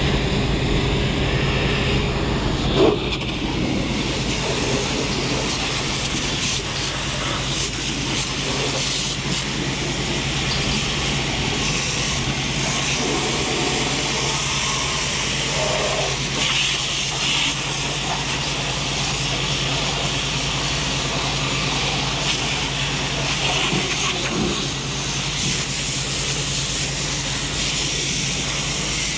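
Firefighting hose nozzle spraying a steady jet of water and foam onto a burned truck: a constant rushing hiss with a steady low engine hum beneath it. One brief knock about three seconds in.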